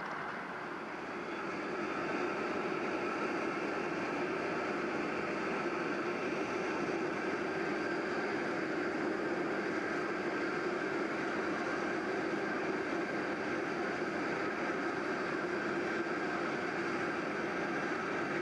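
SR.N4 hovercraft's gas turbine engines running steadily, a constant whine over a broad rushing noise, which grows louder about a second and a half in and then holds.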